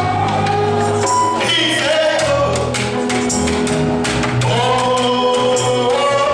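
Gospel worship music: voices singing over a band, with a tambourine or similar percussion keeping a steady beat.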